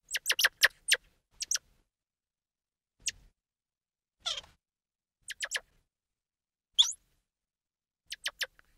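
A small animal giving short, high squeaks in scattered clusters, with silence between them.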